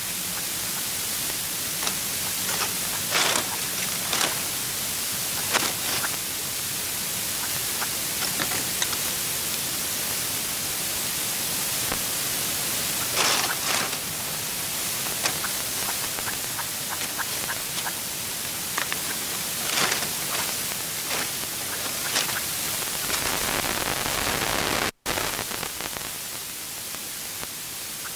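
Steady, loud hiss of outdoor noise, with a handful of brief sharp sounds scattered through it; the sound cuts out for an instant near the end.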